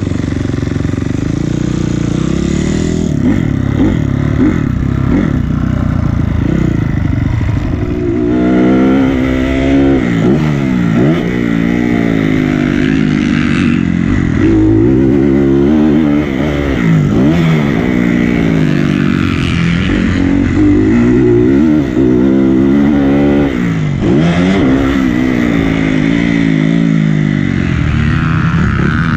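Dirt bike engine ridden hard on a motocross track, heard from on the bike: fairly steady for the first several seconds, then revving up and falling off again over and over.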